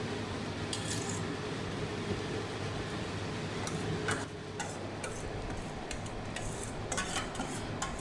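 A steel spoon scraping and clinking against a stainless steel bowl and pot as thick blended greens paste is scraped out and poured in. Clicks come once about a second in, then more often from about halfway to the end, over a steady low hum.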